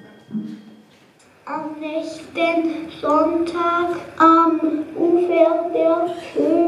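A high voice singing a melody in held notes, starting about a second and a half in after a quiet moment.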